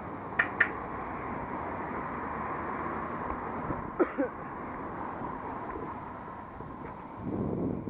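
Steady rumbling wind and handling noise on an action camera's microphone as the camera moves. Two sharp clicks come about half a second in, two more clacks about four seconds in, and the noise swells near the end.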